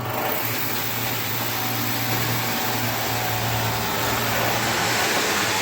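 A machine running steadily: an even, loud rushing hiss over a low hum, with no change in pitch.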